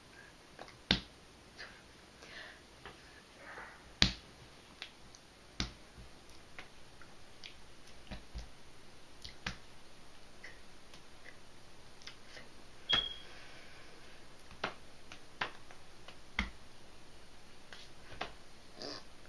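Irregular sharp clicks and soft taps, spaced a second or so apart, from hands striking and brushing together during silent signing, with no speech. The loudest snaps come about a second in and about four seconds in.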